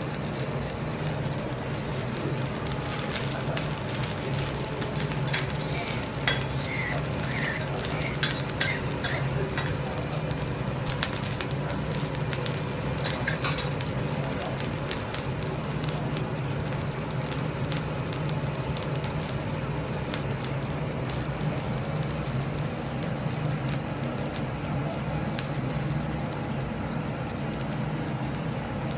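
A thick Miyazaki A5 wagyu steak sizzling as it sears on a hot teppanyaki griddle, with a steady frying hiss and many small crackles from the rendering fat over a low steady hum.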